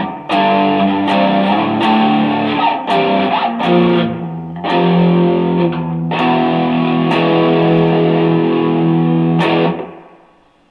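Electric guitar played through a Nobels Sound Studio 1 preamp set to distortion with echo and chorus: a run of distorted chords, each struck and left to ring. The playing stops about a second before the end and dies away.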